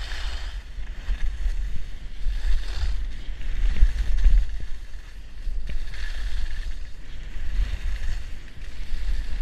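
Wind rushing and buffeting over the microphone of a skier going downhill, with the hiss and scrape of skis on packed snow swelling several times as the skier turns.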